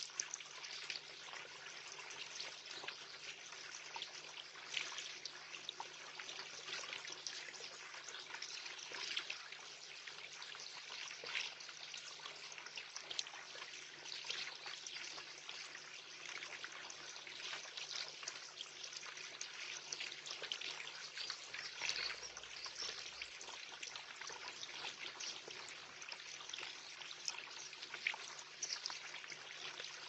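Garden water feature trickling steadily into a shallow bird bath, with many small irregular splashes from a goldfinch bathing in the water.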